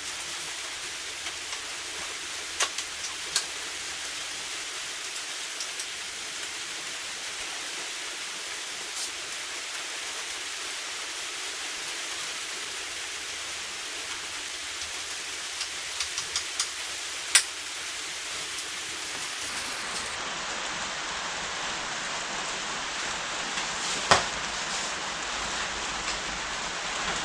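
Steady hiss of rain, with a few sharp clicks and knocks scattered through it, the loudest about two-thirds of the way in and again near the end.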